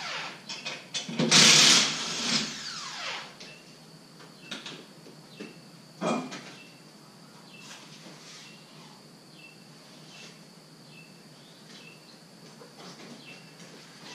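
Power impact wrench on the car's lug nuts, running in a short burst about a second in, its motor whine falling as it spins down. A knock follows about six seconds in, then faint small clicks.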